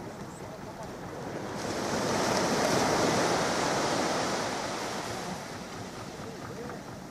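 Small surf breaking and washing up the sand, swelling to its loudest about two to three seconds in and fading away by about five seconds.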